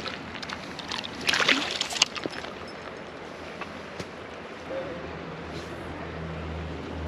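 Water splashing and sloshing close by, with a few clicks, for the first two seconds or so, then the steady rush of a flowing creek.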